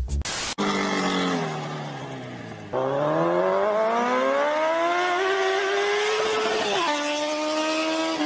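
A motor vehicle's engine revving: its pitch sinks, then climbs steadily for about four seconds as it accelerates, drops in one step like a gear change near the end, and holds steady.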